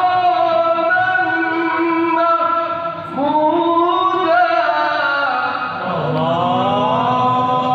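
A man reciting the Qur'an in the melodic qori style into a microphone, amplified through a loudspeaker: long held notes with ornamented pitch turns, in phrases that break off and start again with a rising glide about three and six seconds in.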